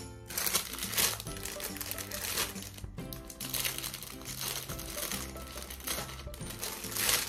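Plastic packaging crinkling as a garment is handled and pulled from its clear plastic bag, loudest about a second in and again near the end, over background music.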